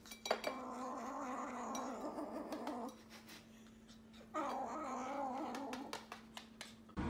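A kitten growling over a shared food bowl: two long, wavering growls, the first about two and a half seconds and the second about a second and a half, with a pause between.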